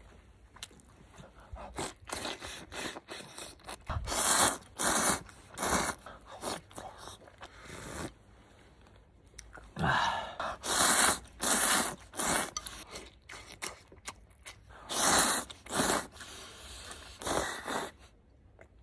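A person slurping ramen noodles in a series of short, hissing bursts, with quieter chewing between them.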